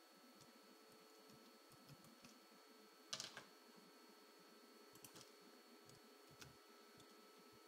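Faint, scattered clicks of computer keyboard keys as a password is typed, with a louder click about three seconds in, over a faint steady hum and thin high tone.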